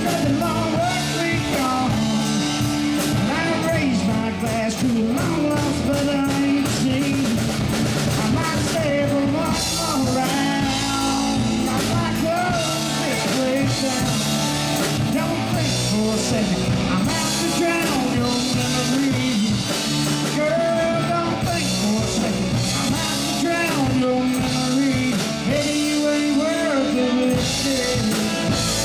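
Live country-rock band playing, with drum kit and electric guitar over a steady beat.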